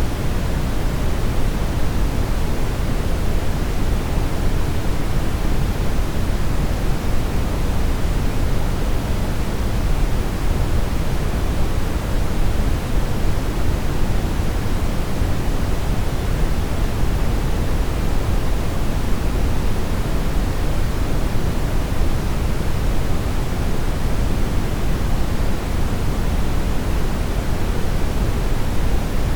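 Television static: a steady, even hiss of noise with no signal, heaviest in the low end.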